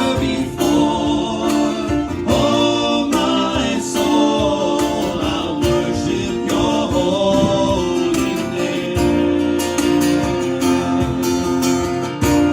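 Worship band playing a hymn, with strummed acoustic guitar chords under a sung melody line.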